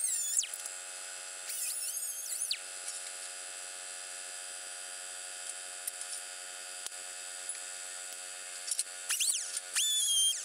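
Electric angle grinder whining as it spins, briefly at the start and again around two seconds in, then spinning up about nine seconds in and grinding on steel with a strong steady whine. A steady hum runs underneath.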